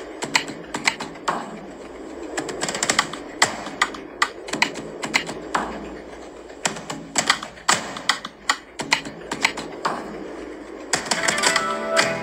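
Rapid, irregular sharp clicks and taps, several a second, like typing. Near the end, music with sustained notes comes in.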